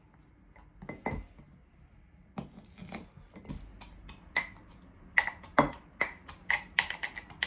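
Metal pestle pounding garlic cloves in a metal mortar: sharp metallic clinks, a few scattered at first, then a quicker run of ringing strikes from about five seconds in.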